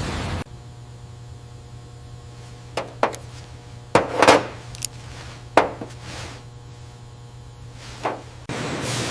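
Scattered sharp knocks and clicks, about seven of them, over a low steady hum. A louder rushing noise cuts off about half a second in and comes back near the end.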